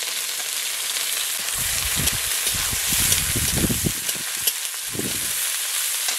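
Freshly added chopped onion sizzling and frying in hot oil in a kadai, a steady hiss, with low knocks of a spatula stirring it between about one and a half and four seconds in and again near five seconds.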